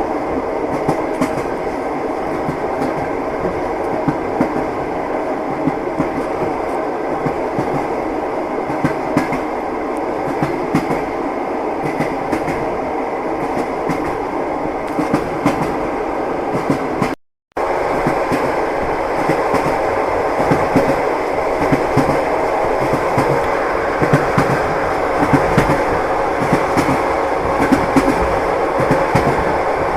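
Train wheels clicking over rail joints, a steady clickety-clack over a continuous rolling rumble. The sound cuts out completely for a moment just past halfway, then resumes.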